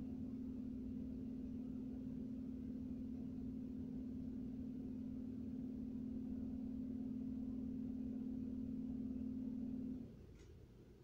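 A steady low hum, such as a motor or appliance running, that cuts off suddenly about ten seconds in.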